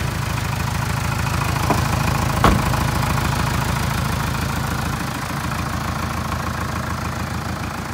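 Mitsubishi Canter truck engine idling steadily with an even low pulse. There is a faint click, then a single sharp knock about two and a half seconds in as the cab door shuts.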